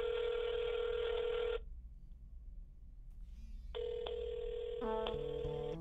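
Telephone ringing tone heard down a phone line: a steady ring of about two seconds, a pause, then a second ring. Music enters near the end, its notes stepping downward.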